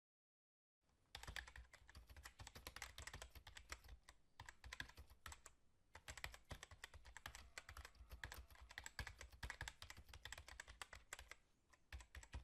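Faint, fast clicking of typing on a keyboard, starting about a second in and running with a few brief pauses.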